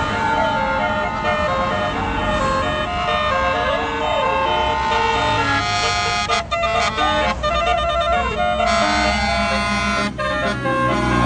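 Basuri telolet musical bus horn playing a tune: held notes and quick swooping notes, over a bus engine's low rumble.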